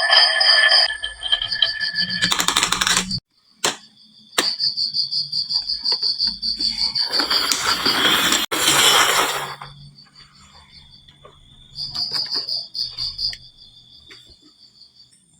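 Marbles rolling and clattering down a wooden marble run in two louder stretches, with a few sharp clicks between them. Over it a high, rapidly pulsing trill stops and starts.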